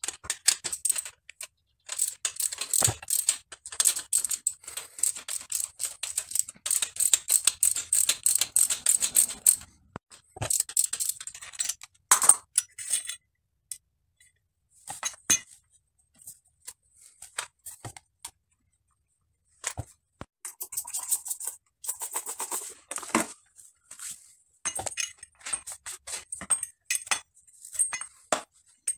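Metal clicks, clinks and knocks from a bicycle suspension fork being taken apart by hand, its stanchions and crown slid out of the lower legs and the parts handled and set down. Rapid clusters of small clicks for the first several seconds, only scattered knocks through the middle, then busy clinking again about two thirds of the way in.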